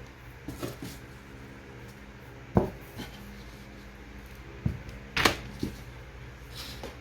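A few light knocks and clicks of hands working with a hot glue gun and a burlap-wrapped wooden box. The sharpest knock is about two and a half seconds in, with a small cluster just after five seconds, over a steady low hum.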